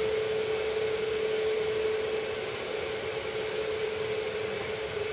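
Steady room hum holding one constant tone, with an even hiss under it.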